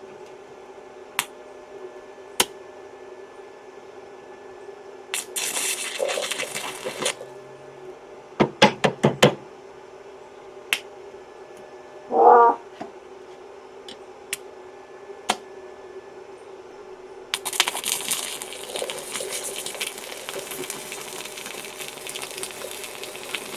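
Stick (arc) welding: sharp clicks and taps as the rod is struck to start the arc. The arc crackles and sizzles for about two seconds some five seconds in, and again for about six seconds near the end, over a steady electric hum. A short pitched cry comes about twelve seconds in.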